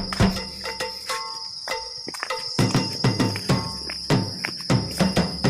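Steady high-pitched drone of forest insects, with a scatter of irregular knocks and clicks over it.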